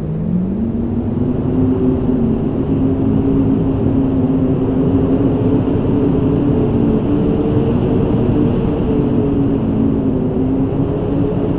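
Howling wind: a loud, low rumble with a hollow, wavering whistle in it. The whistle rises in pitch in the first second, wavers slowly, and sinks again near the end.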